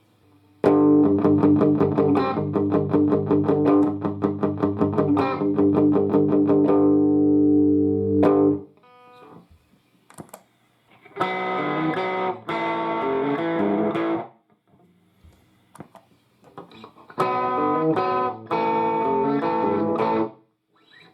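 Electric guitar played through a combo guitar amplifier with an overdriven tone. First comes a long phrase of rapidly picked notes over a ringing chord, which cuts off sharply. Then come two shorter phrases with pauses between them.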